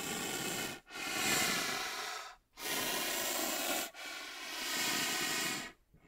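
Rhinoceros breathing heavily: four long, breathy, hoarse breaths, each one to two seconds, with short pauses between them.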